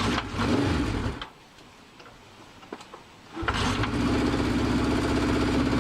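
1972 Honda CB500 Four's air-cooled inline four-cylinder engine being started: a first short burst of about a second that does not keep going, then, about three and a half seconds in, it catches and settles into a steady idle.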